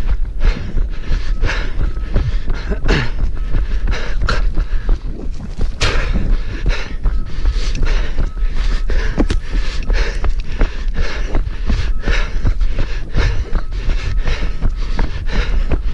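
A runner breathing hard with rhythmic footfalls, heard up close while running.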